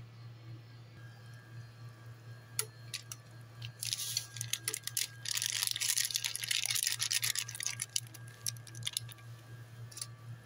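A plastic sachet of sinigang soup mix crinkling loudly as it is shaken and emptied over a pot, from about four seconds in for about four seconds, after a few sharp clicks. A steady low hum runs underneath.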